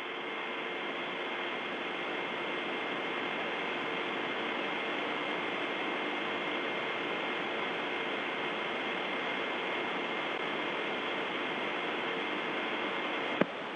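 Steady hiss of the open air-to-ground radio link from the Soyuz spacecraft cabin during the third-stage burn, cut off above the middle treble. A faint steady high tone and a low hum run through it.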